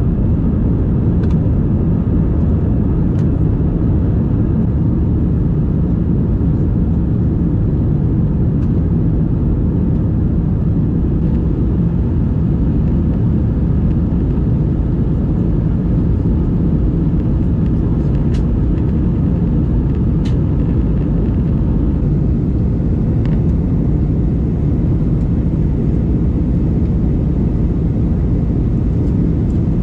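Steady low rumble of a moving vehicle, with a few faint ticks over it.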